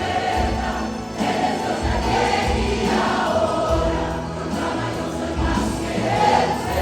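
Church choir singing a worship song in Spanish, with instrumental accompaniment that carries a steady low beat.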